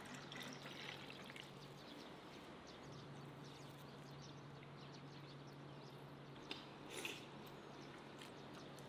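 Faint juice pouring in a thin stream into a clay cup near the start, over a low steady hum. Later come quiet handling sounds, with two short clicks or rustles about six and a half and seven seconds in.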